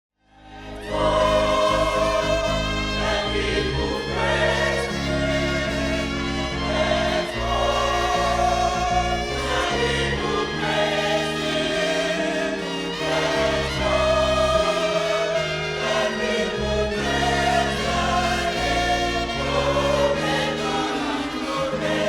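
Gospel choir singing over instrumental accompaniment, fading in at the start.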